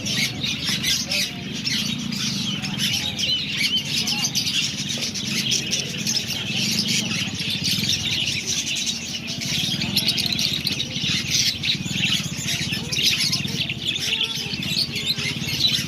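Many caged pet birds chirping and calling at once, a dense unbroken chatter of short high chirps over a steady low background hum.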